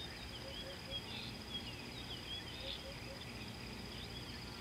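Natural ambience: a steady high-pitched insect trill throughout, with short chirping bird calls scattered over it and a few soft low calls.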